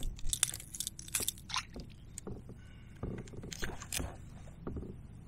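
Irregular clicks, scrapes and rattles of hands unhooking a largemouth bass from a lure over a landing net, with a quieter stretch in the middle.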